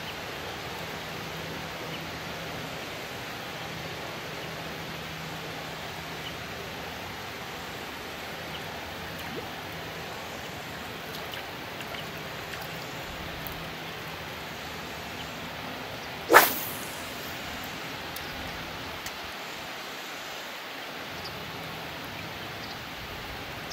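One sharp swish of a spinning rod casting a lure, about two-thirds of the way through, over a steady outdoor hiss.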